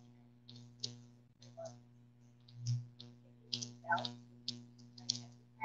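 A woman's voice, faint and broken into short fragments, with short clicks between them and a steady low hum underneath.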